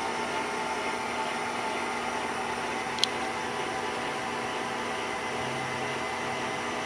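Bridgeport table power feed unit running steadily, driving the milling machine table with a constant whine, and one sharp click about three seconds in.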